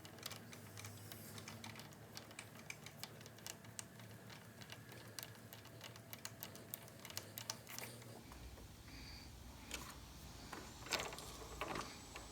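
Faint, irregular clicking and ticking of a Phillips screwdriver driving the bolt that fastens the height adjustment knob to a table saw's height adjustment wheel, with a few louder knocks near the end.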